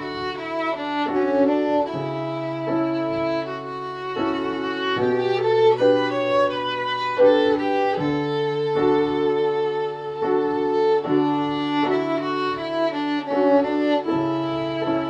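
Instrumental music: a bowed-string melody led by violin over sustained low notes that change every two to three seconds.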